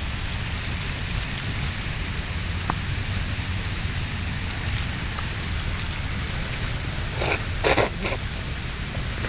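Steady rushing hiss with a low rumble underneath, and a brief clatter of eating utensils about seven to eight seconds in.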